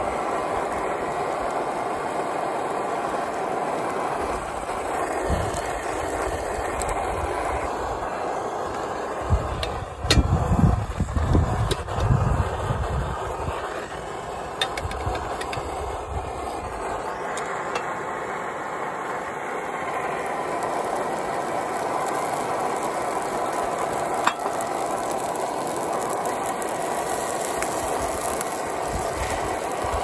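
Seafood and green-onion pancake sizzling steadily in a frying pan on a camp gas burner. About ten to thirteen seconds in come a few louder knocks and thuds as the pan is handled.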